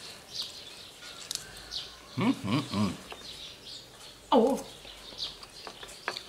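Small birds chirping again and again in the background, with a short run of louder pitched calls a little after two seconds in and another just past four seconds.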